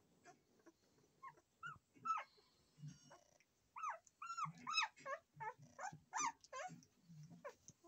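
Week-old German Shepherd puppies squeaking and whimpering in short, high cries, coming thick and fast from about four seconds in: a pup fussing and looking for its absent mother.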